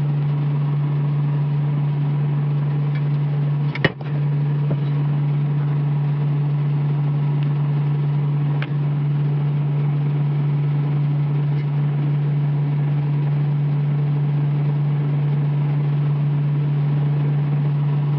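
A steady low hum that does not change in pitch or level, broken by a brief click about four seconds in.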